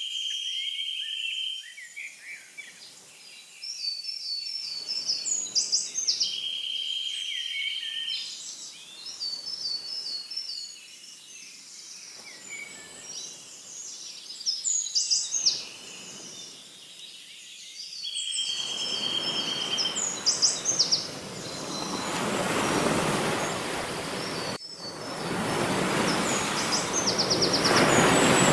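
Several birds chirping and trilling over a soft wash of surf that swells and fades every couple of seconds. From about two-thirds of the way in, the surf noise grows much louder, breaks off for an instant, then builds again.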